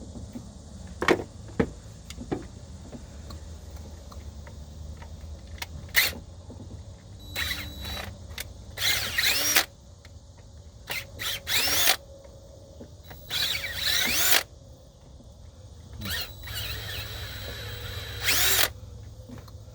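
Cordless drill run in about six short bursts, each a whine that changes in pitch, with a few sharp clicks before the first, as it drives a deck screw into a broken-off MDS plug to get a bite on it.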